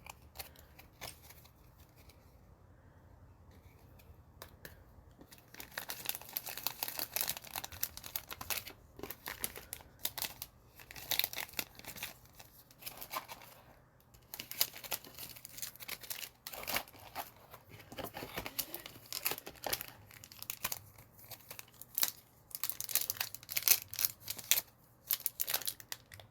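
A trading card pack's wrapper being torn open and crinkled by hand, in irregular crackling bursts that start about five seconds in, with a short pause about halfway through.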